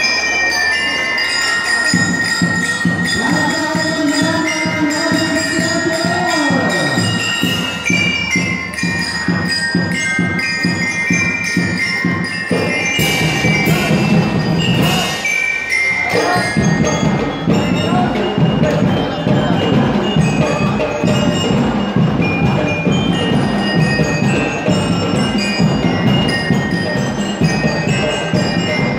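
Drum and lyre band playing: bell lyres ring out a melody over a steady marching drum beat that comes in about two seconds in.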